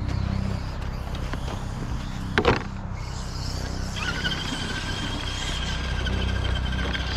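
Electric motor of a radio-controlled monster truck whining at a steady high pitch from about four seconds in, over a low rumble, with one short sharp squeal about two and a half seconds in.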